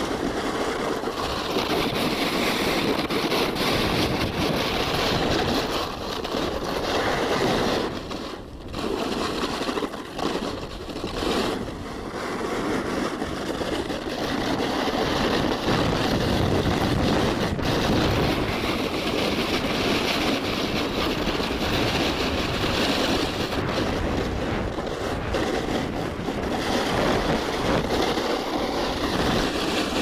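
Strong wind buffeting the microphone, a steady rushing noise that eases briefly about eight to twelve seconds in.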